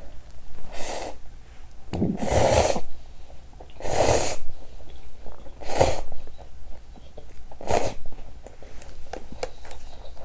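Slurping noodle broth from an instant noodle cup, five short slurps about two seconds apart, followed by faint small clicks.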